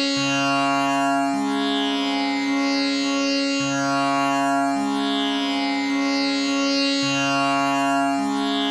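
Tanpura drone tuned to C#, its strings plucked one after another in a slow repeating cycle of about three and a half seconds, each pluck ringing on with the bright, buzzing shimmer of the jawari bridge. Used as the steady reference drone for singing practice.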